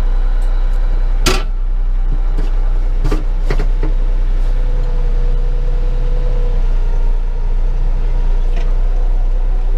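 Bobcat compact tractor's diesel engine running steadily as the tractor drives, with a few sharp knocks about a second in and again around three seconds in. A steady low rumble of wind on the microphone sits underneath.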